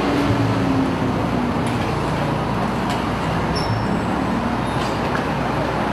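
Steady outdoor urban background noise, a hum of distant road traffic, with a few faint clicks.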